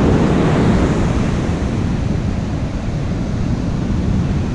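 Ocean surf breaking and washing up a sandy beach, with wind rumbling on the microphone. Loudest at the start, easing off slightly.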